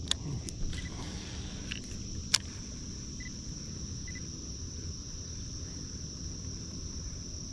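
Insects droning steadily at a high pitch, with a few light clicks and one sharp click a little over two seconds in.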